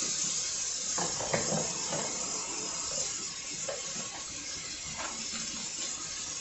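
Dishes being washed by hand in a stainless kitchen sink: a steady hiss of running tap water, with a few light knocks of dishes about 1, 3 and 5 seconds in.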